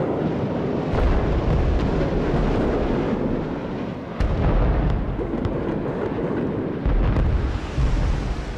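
Aerial bombs exploding on the ground in a continuous heavy rumble, with three big booms about a second, four seconds and seven seconds in.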